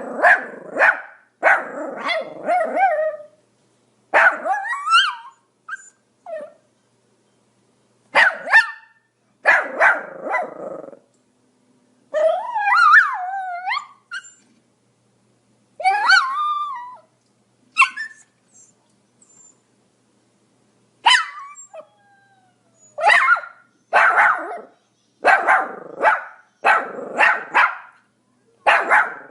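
Pomeranian barking: sharp, high barks in quick bursts of several, separated by short pauses, with a couple of longer, wavering calls about halfway through and a fast run of barks near the end.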